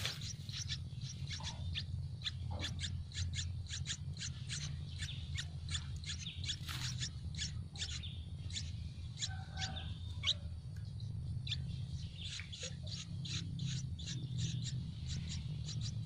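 Yellow-vented bulbul nestlings' begging calls: rapid, short, high cheeps, several a second, from hungry chicks at the nest. A steady low hum runs underneath.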